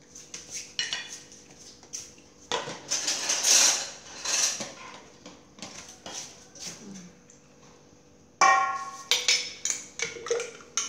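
Metal kitchenware clattering: a series of sharp clinks and knocks on a stainless steel mixing bowl, some ringing briefly, with a longer rustling, scraping stretch in the middle. The loudest ringing strike comes near the end, followed by a few quicker clinks.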